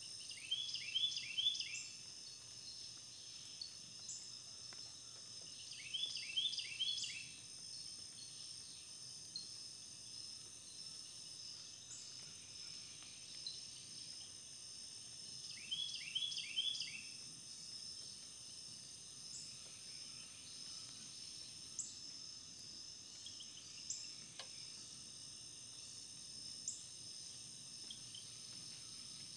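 Steady high-pitched chorus of insects, with a bird singing a short phrase of four quick notes three times: near the start, about six seconds in and about sixteen seconds in.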